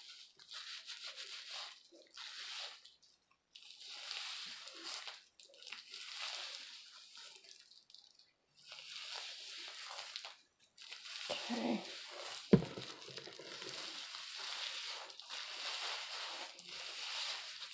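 Gloved fingers rubbing and working hair bleach through wet hair, a scratchy rustle in irregular bursts with short pauses. One sharp knock comes about two-thirds of the way through.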